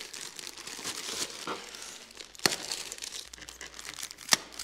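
Paper wrapping crinkling and tearing as it is unwrapped by hand from a long wrapped roll of parts, with a couple of sharper snaps, one about halfway through and one near the end.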